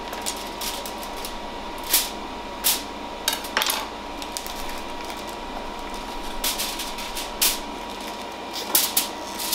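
Metal kitchen tongs clicking and clattering against a foil-lined tray while raw burger patties are lifted out of their plastic packaging and laid on it. The sounds are a handful of scattered sharp clacks with light rustling between them.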